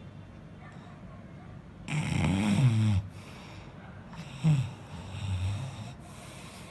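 A man snoring: one long, loud snore about two seconds in, then a short snore and a softer one a little later.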